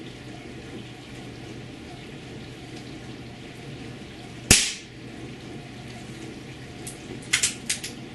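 A single shot from an Air Arms S410 .22 calibre PCP air rifle about halfway through: one short, sharp crack. A few quick, light metallic clicks follow near the end.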